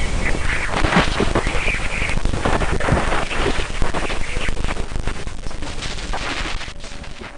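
Sonified spacecraft radio or plasma-wave recording presented as the sound of a moon: a dense, crackling static with a low rumble underneath, fading out near the end.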